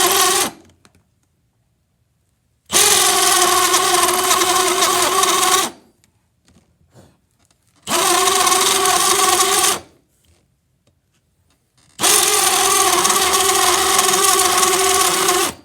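Power drill turning a barracuda-tooth hole saw through a wooden door to bore a deadbolt hole, running with a steady whine in bursts: one run stops about half a second in, then three more runs of two to four seconds each with short pauses between.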